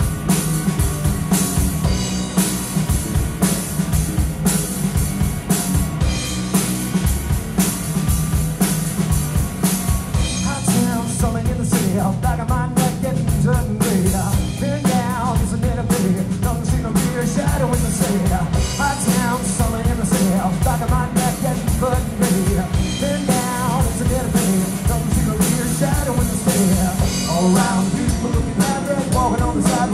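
Live rock band playing through a PA: electric guitar, bass guitar and drum kit with a steady beat, and a male lead vocal joining about ten seconds in.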